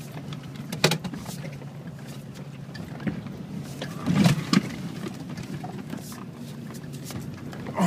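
Ford Bronco engine running steadily while climbing a steep hill, heard from inside the cab, with sharp knocks and jolts from the truck lurching over rough ground: once about a second in, twice close together about four seconds in (the loudest), and once near the end.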